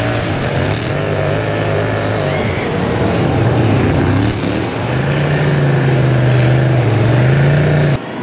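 Racing lawn mower's engine heard close up from a camera mounted on the mower, its pitch wavering and then settling higher and steadier under throttle about halfway through. It cuts off abruptly near the end.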